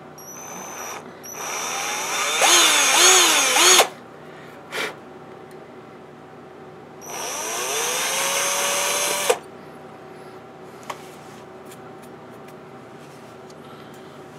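Handheld power drill with a 1 mm bit drilling holes through a copper-clad circuit board, run in short bursts with pauses between: a brief spin, a longer run of a couple of seconds, a quick blip, then another run of about two seconds that spins up to a steady whine.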